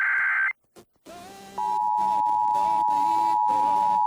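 Emergency Alert System tones on FM radio played through a home stereo: the last burst of the SAME digital header, a buzzing data burst, cuts off about half a second in. After a brief gap, the EAS two-tone attention signal starts about a second and a half in and holds steady.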